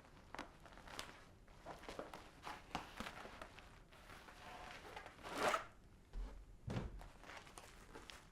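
Household handling noises: a string of small clicks, taps and rustles, a louder swishing rustle about five seconds in, then a dull thump.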